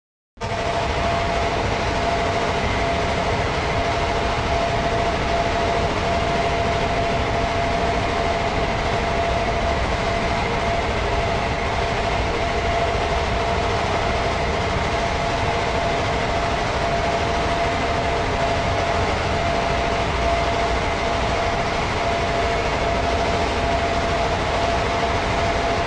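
Noisy cinematic atmosphere sound effect: a steady, dense background noise with a held mid-pitched hum running through it, beginning abruptly just after the start.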